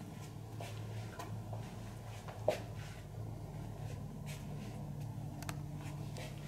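Quiet massage handling sounds: soft rubbing and light taps of hands on a client's body, with one sharper click about two and a half seconds in, over a steady low hum.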